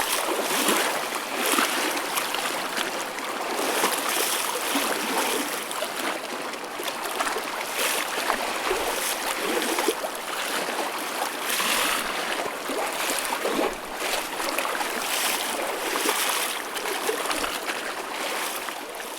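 Choppy ocean waves: a steady wash of splashing water that swells and eases every second or two.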